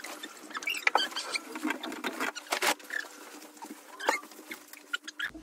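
Duvet and bedding rustling as a white duvet is shaken out and spread over a mattress, with many quick scuffs and taps of hands and feet on the bed.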